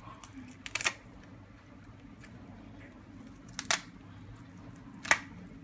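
Kitchen shears snipping through raw chicken bone: three sharp snaps, about a second in, near the middle and near the end. The shears are dull and their return spring has come off, so each cut is hard and closes with a snap.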